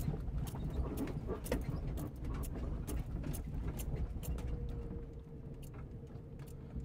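Jeep Cherokee XJ driving slowly over a rough, washed-out dirt trail: a low engine and road rumble with frequent sharp clicks and knocks from the body and suspension rattling over the bumps.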